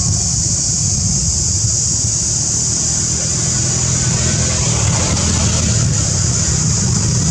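Steady outdoor background: a continuous high-pitched insect drone over a low, unbroken rumble.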